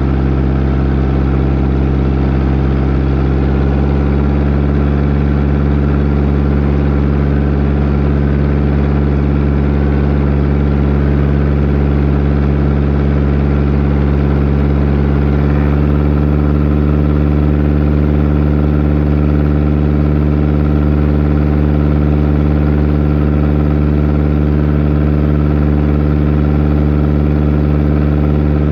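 Seaplane's piston engine running steadily, an even drone with a slight change in pitch about three to four seconds in.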